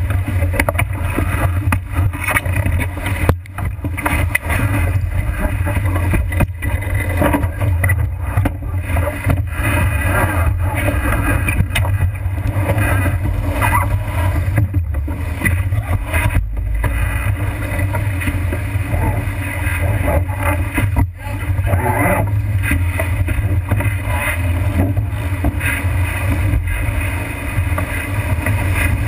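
Wind buffeting the microphone of a camera mounted on a sailboat's deck, a steady heavy rumble, over the rush and splash of water along the hull as the boat sails fast through rough, choppy water.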